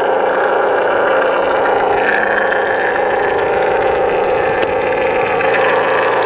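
Simulated piston-engine idle played through the RC plane's onboard sound-module speaker, a steady loud drone with a slightly higher note joining about two seconds in.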